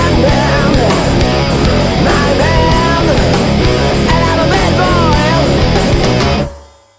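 Loud hard rock band recording: guitars with bending lead lines over bass and drums. The song stops suddenly near the end and quickly dies away to silence.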